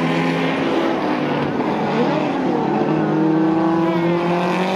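Classic race car engine running hard through a corner, its pitch dipping briefly about two seconds in and then climbing steadily as it accelerates.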